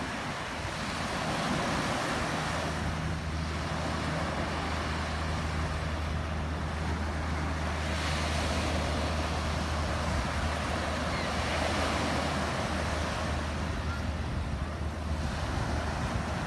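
Small waves breaking and washing up a sandy beach, swelling and easing every few seconds, with wind on the microphone and a steady low hum underneath.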